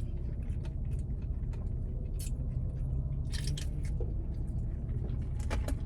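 Chewing a mouthful of a breaded chicken sandwich: short, soft crunching and mouth sounds at irregular moments, over a low steady hum.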